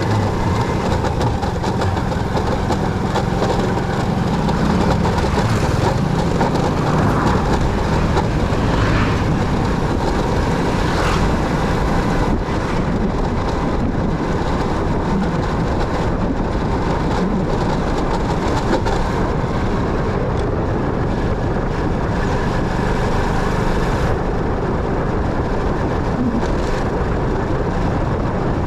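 Motorcycle being ridden on the road: a steady run of engine and road noise.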